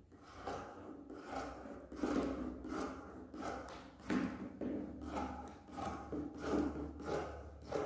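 Fabric scissors cutting through several layers of upholstery fabric, a steady run of snips, one every half second or so.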